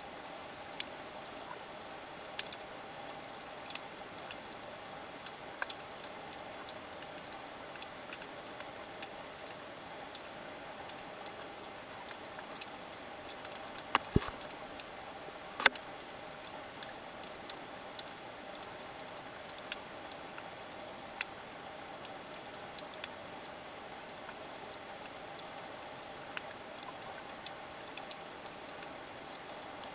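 Underwater sound over a rocky coral reef: a steady hiss with irregular sharp clicks and crackles, two louder clicks about halfway through.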